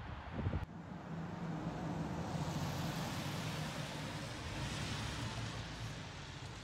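A car passing on the street: tyre and engine noise swells over a couple of seconds, then slowly fades. A few low thumps sound just at the start.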